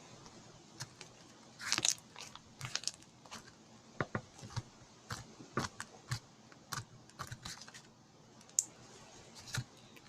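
Slime being squeezed and worked by hand, making a run of irregular sticky clicks and little pops, with a louder cluster about two seconds in.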